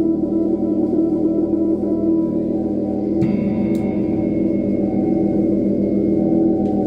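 Live band playing a slow, droning instrumental passage. Sustained, ringing chords hold steady, then shift to a new chord about three seconds in.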